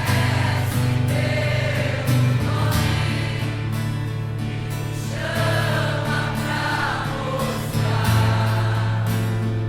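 Gospel song playing: a choir sings over a steady bass line, between lines of the verse.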